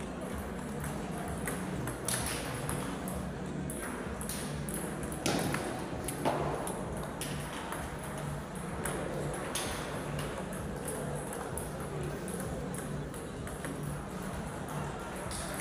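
Table tennis rally: the ball clicking sharply off the bats and bouncing on the table in quick back-and-forth exchanges, over a steady low hum.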